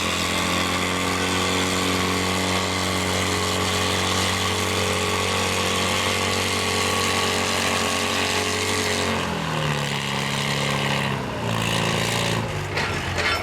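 Farm tractor engine running hard at a steady pitch under the load of a pulling sled, then falling in pitch about nine seconds in as it comes off the throttle at the end of the pull.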